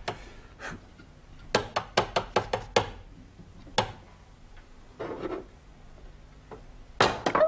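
A hard-boiled egg knocked against a plate to crack its shell: a quick run of sharp taps about one and a half seconds in, one more tap near four seconds, then a soft scraping as the shell is picked off.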